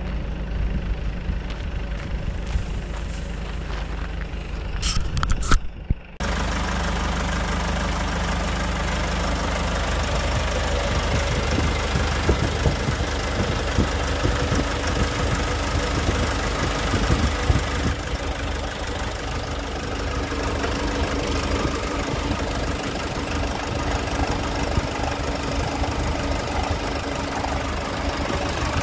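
Nissan Cabstar's diesel engine idling steadily. From about six seconds in it is heard close up in the open engine bay, fuller and louder.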